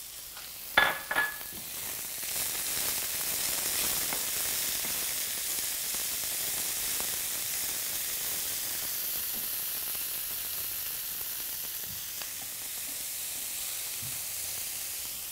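Beans and squash sizzling in a hot skillet as they are stirred with a spatula: a steady, high hissing sizzle. A couple of sharp clinks about a second in.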